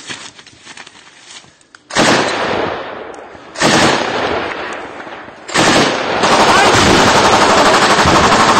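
Gunfire in combat: three loud shots or blasts, each dying away with an echo, then from about six seconds in a sustained stretch of rapid automatic fire.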